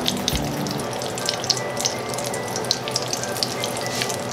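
Butter melting in hot oil in a stainless-steel skillet, giving a steady sizzle with small scattered pops.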